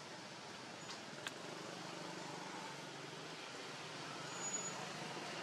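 Steady outdoor noise with a faint engine drone in the distance, slowly growing louder. A single click sounds about a second in, and a short high chirp comes near the end.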